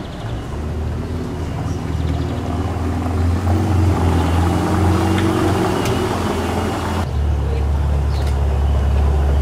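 Ferrari 488's twin-turbo V8 engine running at low speed as the car crawls over cobblestones, a steady low drone that rises a little in pitch a few seconds in. The sound changes abruptly about seven seconds in to a heavier, steadier drone.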